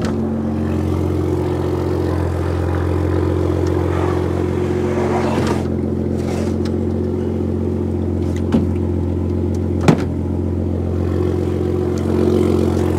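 Pickup truck's engine idling steadily, with two sharp knocks about a second and a half apart past the middle.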